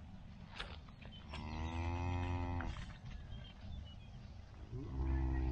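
Cattle mooing: one long moo about a second in, then a shorter one starting near the end.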